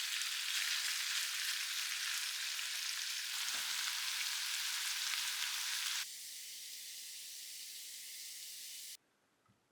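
Thin-sliced pork (daepae bulgogi) sizzling as it fries in a pan, a steady hiss. It drops to a quieter sizzle about six seconds in and cuts off suddenly near the end.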